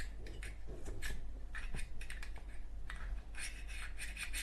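Light scratching and rubbing with small clicks as fingers push a rayon ball into a Zippo lighter insert, busiest near the end.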